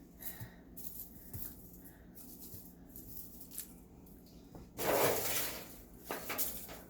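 Rustling and handling noises as potato plants are pulled and handled: a few faint clicks, then a louder rustle about five seconds in and a shorter one about a second later.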